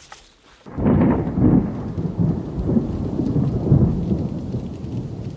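Thunder rumbling: a loud, low rumble breaks in suddenly about a second in and keeps rolling unevenly.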